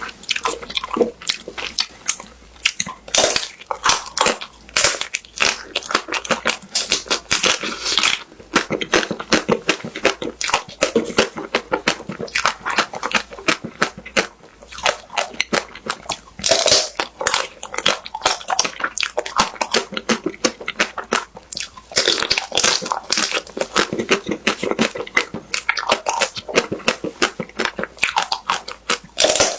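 Close-up crunching and chewing of a crispy-shell ice cream bar, with bites cracking the brittle coating, repeated throughout in irregular crackly clusters.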